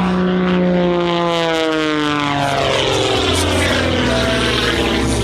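Aerobatic monoplane's propeller and piston engine, its note sliding steeply down in pitch and then shifting back up as the plane tumbles through a manoeuvre.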